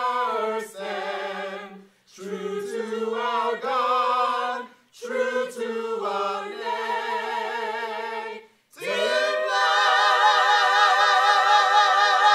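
Mixed-voice choir singing a cappella in short phrases with brief breaks between them. Near the end it swells into a long, louder final chord with vibrato, then cuts off.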